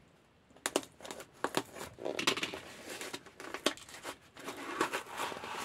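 A plastic courier packet and its packing tape being torn open and crinkled by hand: sharp rips and crackling rustles that start about half a second in.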